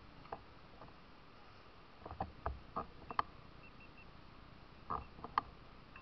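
Mountain bikes being handled at close range: scattered sharp clicks and knocks, a cluster of them about two to three seconds in and two more near the end, with a few faint short high beeps between them.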